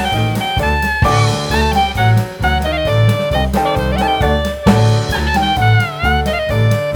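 Background music: an upbeat jazzy tune with a horn melody over a walking bass and drum kit.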